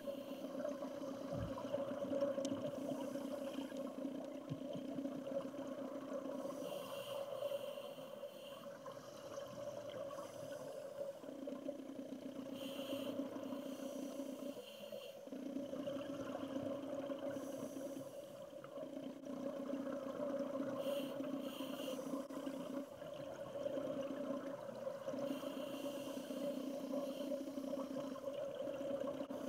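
Underwater recording of a scuba diver breathing through a regulator: a hissing breath or burst of exhaled bubbles about every four to six seconds, over a steady low hum.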